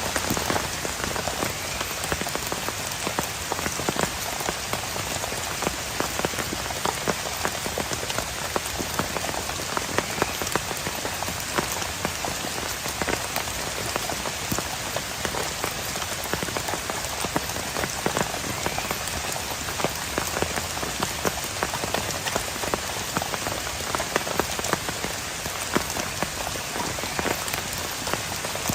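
Heavy rain falling steadily, with many individual drops striking a surface close by.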